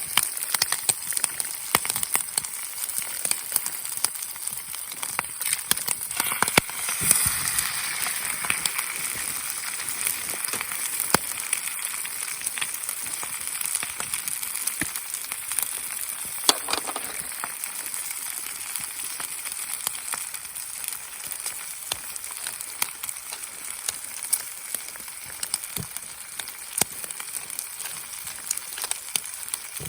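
Wood campfire crackling: many small irregular pops and snaps over a steady hiss.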